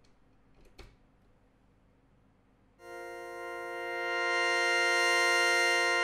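Mutable Instruments Plaits synth voice comes in about three seconds in as a steady, bright tone with many overtones. It swells louder as a Maths channel's voltage, turned up by hand, drives Plaits' level input.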